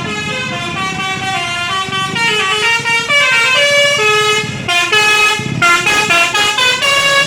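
Bus 'telolet basuri' multi-tone horn playing a melody, its notes stepping up and down, with brief breaks about two thirds of the way through and quicker, choppier notes toward the end.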